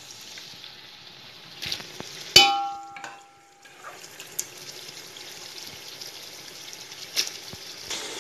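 Spiced masala sizzling in a large metal pot as cooked mutton pieces are spooned in. A steel spoon strikes the pot once, about two seconds in, with a loud ringing clang.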